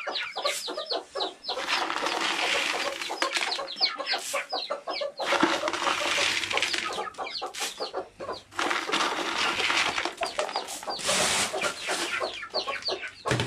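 Domestic chickens clucking and chirping, many short calls in quick succession while feeding on scattered corn, with several short bursts of rustling.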